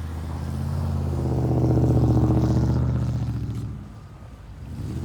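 Pickup truck engine running under load, its low drone swelling louder to about two seconds in, then easing off and dropping away about three seconds in before picking up again near the end.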